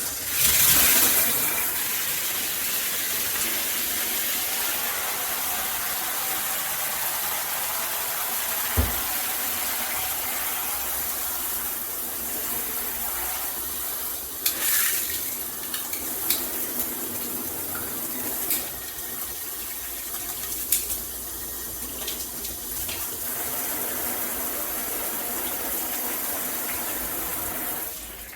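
Water rushing steadily from a handheld shower head, with a few short knocks and clicks along the way; the flow drops off near the end.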